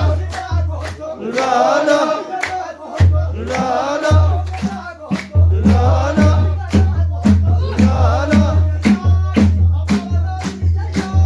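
A group of men chants a baro menzuma, a Sufi devotional song, over steady rhythmic hand-clapping at about two to three claps a second. The voices come in phrases while the clapping keeps going.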